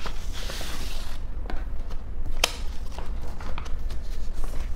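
Paper handling as a document folder is opened and the sheets are pulled out and lifted: a soft rustle of sliding paper in the first second, then several light clicks and taps, the sharpest about two and a half seconds in, over a steady low hum.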